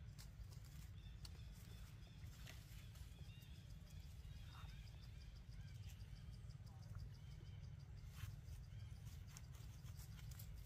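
Near silence: faint outdoor ambience with a steady low rumble, scattered soft clicks, faint high chirps and a rapid ticking.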